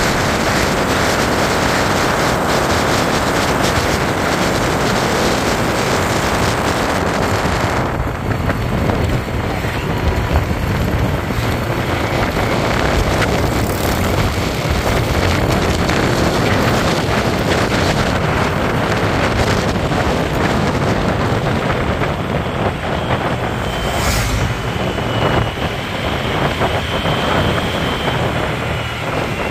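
Wind rushing over the microphone and road noise from riding a motorbike along a paved road, a steady unbroken noise.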